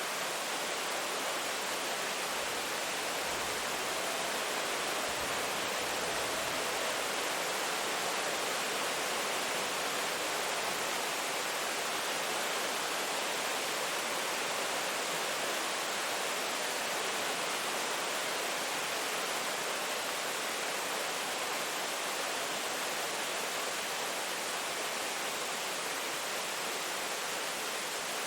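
Steady rain, a continuous even hiss with no single drops standing out, with a faint low rumble a few seconds in.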